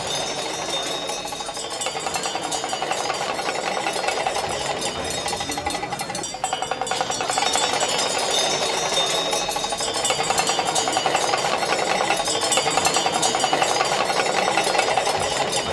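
Tibetan monastic ritual music for a cham masked dance: rapid cymbal and drum strokes over a steady wavering tone, breaking off briefly about six seconds in.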